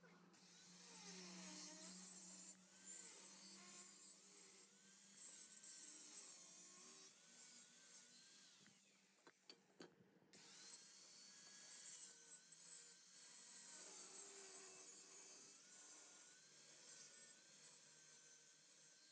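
A power tool working metal, its whine rising and falling as it runs, over a harsh hiss, with a short break about ten seconds in.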